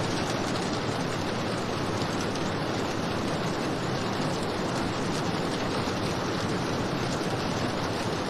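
Steady rain: an even, unbroken hiss with no single drops standing out.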